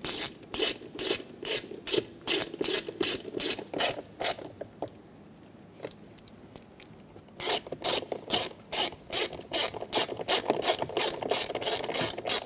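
Hand ratchet clicking steadily, about three clicks a second, as it drives in a screw at the bottom of a door trim panel. The clicking stops for about three seconds midway, then resumes on the second screw.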